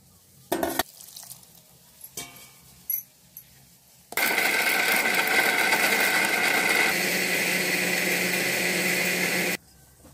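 Bajaj electric mixer grinder running for about five and a half seconds, grinding roasted masala in its steel jar with a steady whine; it starts and stops abruptly. A few short knocks come before it starts.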